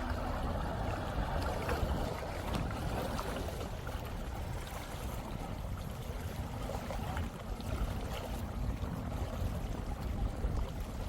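Sea-Doo 3D jet ski with its Rotax 787 RFI two-stroke engine running on the water: a steady rush of engine and water noise.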